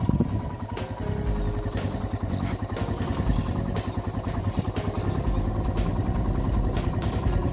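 Motorcycle engine running, a steady rapid pulsing.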